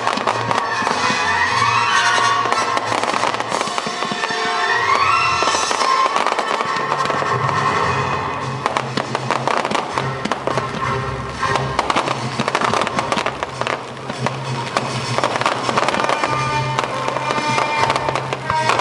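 Fireworks bursting and crackling over loud music played for the display, with a few rising whistles in the first six seconds and dense crackling in the second half.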